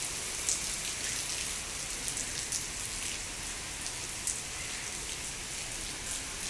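Steady rain falling: a constant hiss with scattered sharp ticks of single drops landing close by.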